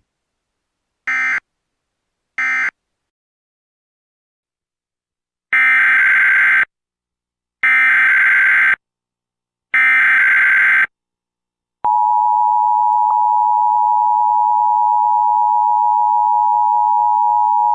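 Emergency Alert System SAME data tones: two short buzzy bursts of the end-of-message code, then three longer header bursts about two seconds apart. From about twelve seconds in comes the steady two-tone EAS attention signal (853 and 960 Hz), held without a break.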